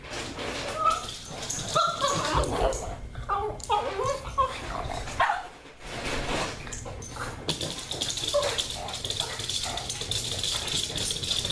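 Pug giving short, pitch-bending whines and yips of excitement while begging at mealtime, in a cluster over the first few seconds and a few more about eight seconds in.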